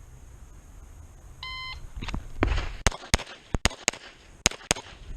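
Electronic shot timer beeps once, about a second and a half in. Then a Beretta 92 Elite LTT 9mm pistol fires a rapid string of shots, some in quick pairs, starting about half a second after the beep.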